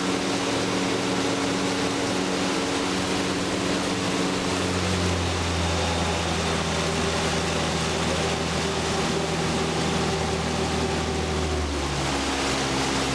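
Tour boat's motor running steadily, with a change in engine note about four seconds in and again near the end, over a hiss of wind and water.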